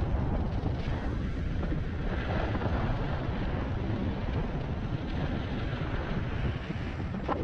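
Steady wind rush buffeting the microphone while riding an electric unicycle at speed: a continuous low rumbling noise with no motor whine standing out.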